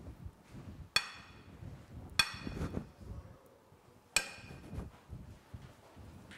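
Three sharp ringing clinks of a metal spoon striking kitchenware, about a second, two seconds and four seconds in, each dying away quickly, with soft handling and scraping noise between them.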